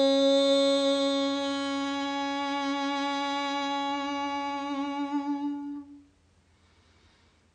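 A woman's voice chanting a long Om, held on one steady note. It wavers slightly near the end and stops about six seconds in.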